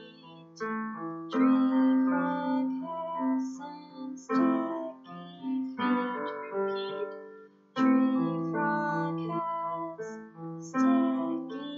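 Digital piano played with both hands: a slow, gentle run of chords and single notes, each struck and left to fade, in short phrases.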